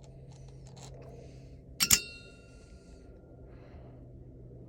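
A few small handling clicks, then about two seconds in a sharp metallic clink, two quick hits that ring on for about a second and a half, as parts are handled during the impact wrench's disassembly. A faint steady low hum underneath.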